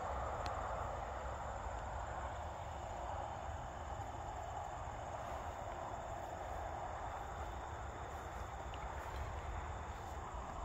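Steady summer meadow ambience: a constant drone of insects, with a low wind rumble on the microphone.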